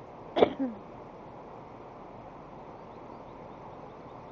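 A woman's single loud sneeze about half a second in, a sharp burst with a short falling voiced tail. A few faint, short, high chirps from a small songbird follow around three seconds in.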